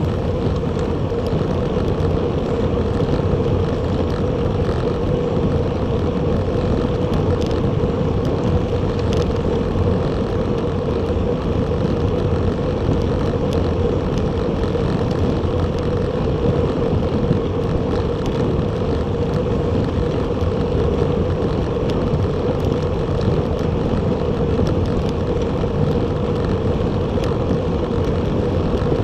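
Steady wind and road noise from a recumbent bicycle riding at speed, picked up by an action camera's microphone, with a constant hum over the rushing.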